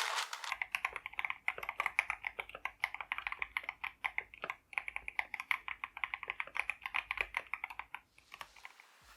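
Typing on a mechanical keyboard fitted with Akko CS Air switches: a quick, steady run of keystroke clacks that stops about eight seconds in.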